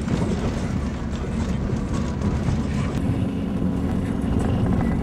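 Car running along a snow-covered road, heard from inside the cabin: a steady low rumble of engine and tyres, with a steady hum joining about three seconds in.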